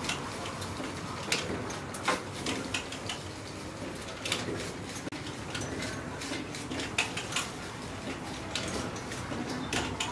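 Dishes and utensils clinking and knocking at irregular moments over a steady background din.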